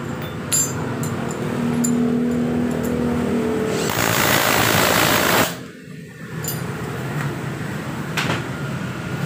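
Cordless impact wrench running in a burst of about a second and a half, rattling as it tightens the front axle nut of a scooter wheel being refitted.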